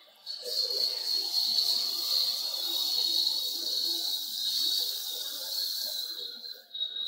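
Hot oil sizzling loudly as red chilli powder is stirred into frying onions and tomatoes in an aluminium karahi. The sizzle starts just after the powder goes in and dies away near the end.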